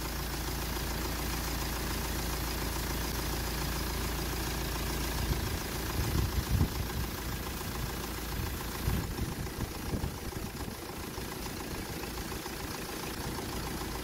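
Car engine idling steadily, with the air conditioning on. A few irregular low bumps and rumbles come through about halfway through.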